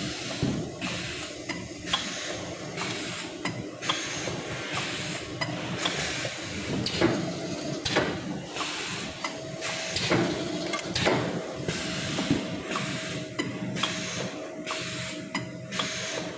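Automatic wire-looping and welding machine for stainless steel frying baskets running, with frequent irregular mechanical clicks and clacks over a steady hum. A thin steady tone joins about nine seconds in.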